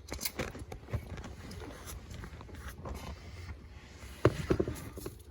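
Light clicks, knocks and rattles of parts being handled around a car's steering column, with a louder clatter about four seconds in.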